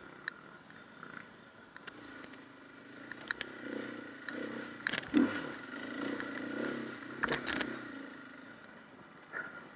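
KTM 500 EXC's single-cylinder four-stroke engine running under the rider, swelling and easing off in surges as the throttle is worked on trail. A few sharp knocks from the bike come through, the loudest about five seconds in.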